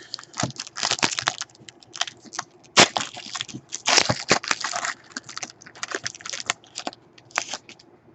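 Trading-card pack wrapper crinkling and tearing open as a pack is ripped, heard as a run of short crackly bursts and clicks.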